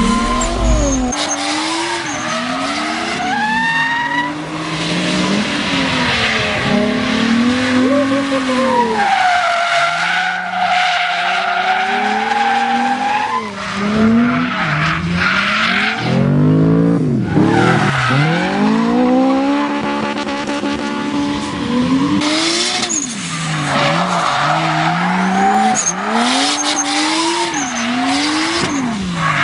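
Race car engine revving up and down over and over, its pitch rising and falling, with tyres squealing and skidding as it drifts.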